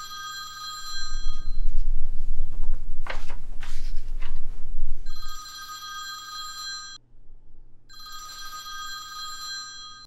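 Old rotary-dial telephone ringing in rings about two seconds long: one dies away about a second and a half in, and two more follow about 5 and 8 seconds in. Between the first and second rings a loud, deep rumble swells up and fades.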